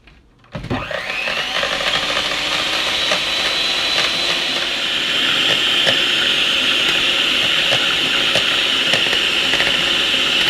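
Electric mixer switched on about half a second in, spinning up quickly and then running steadily as it whips two eggs.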